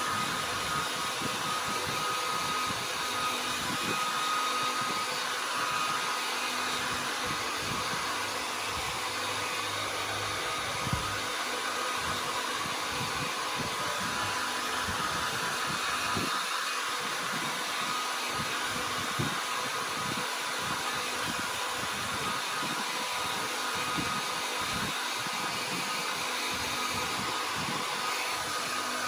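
A dryer and an electric fan running together: a steady rush of air noise with a faint steady hum on top.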